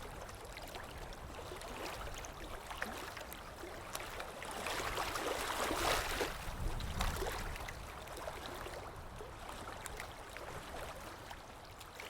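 Small waves lapping and splashing at a lake shore, swelling about five seconds in and then fading away near the end.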